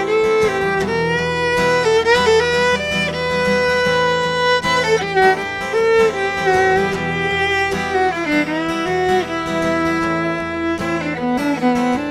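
A violin and a strummed acoustic guitar playing a tune together.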